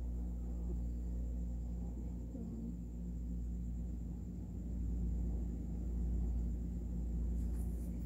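Steady low hum with a faint, thin high whine above it: room tone with no distinct event.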